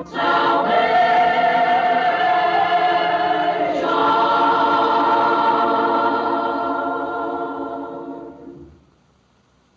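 Boys' choir singing the final word of a hymn, "Salvation!", held as a long chord that shifts to a new chord about four seconds in. The chord then fades out to silence near the end.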